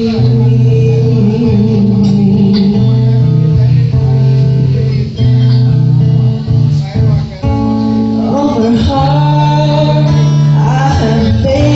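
A band playing an instrumental passage led by guitar over a steady bass line, with singing joining in near the end.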